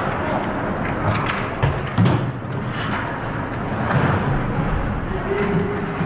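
Ice hockey play close to the goal: skates scraping on the ice and sticks clattering over a steady rink din. Several sharp knocks come about one to two seconds in, the loudest just before and at two seconds.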